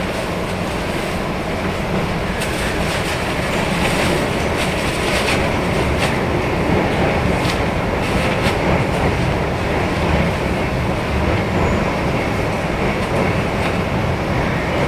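CNR-built electric commuter train running along the track, heard from inside the car: a steady rumble with occasional sharp clicks of wheels over rail joints and no traction motor sound.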